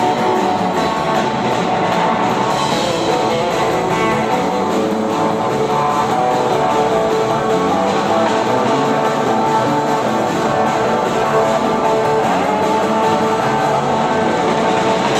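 A band playing blues-rock, with electric guitar to the fore, at a steady level throughout.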